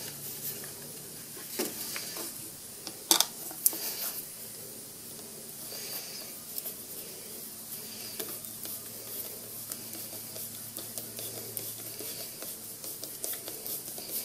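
Plastic air cleaner cover being fitted onto a Briggs & Stratton Quantum lawn mower engine: a few light clicks and knocks in the first four seconds, then scattered faint ticks as a screwdriver turns the cover screw.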